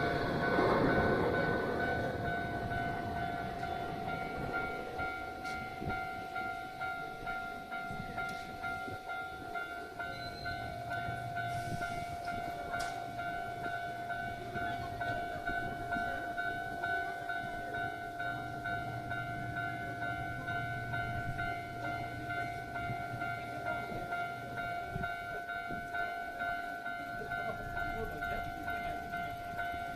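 Railroad crossing warning bell ringing in a fast, steady repeat, one unchanging pitch. Under it, the noise of a passing train fades away over the first few seconds.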